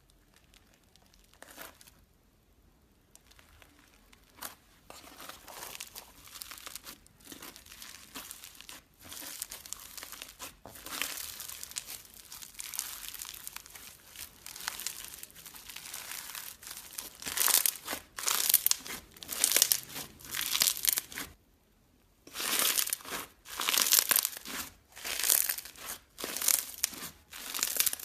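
Crunchy slime being squeezed, crackling and crinkling. It starts faint and grows louder, then comes in rhythmic squeezes about one a second, with a short break about three-quarters of the way through.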